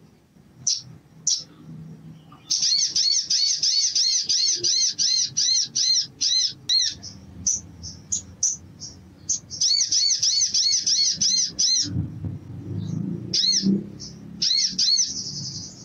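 Olive-backed sunbird calling in an excited chatter: fast runs of sharp, high chirps at about five a second, broken by single chirps, with a short buzzy trill near the end. A low rumble runs underneath.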